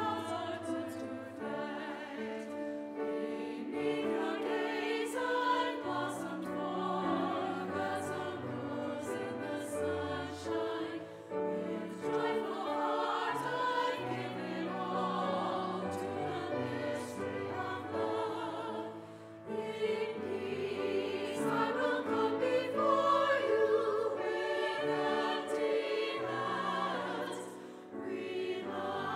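Women's choir singing with piano accompaniment, in sustained phrases broken by short pauses for breath.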